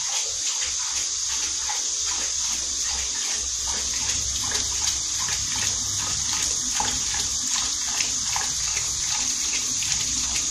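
Kitchen faucet running in a steady stream into a stainless steel sink while a dog laps water straight from the stream.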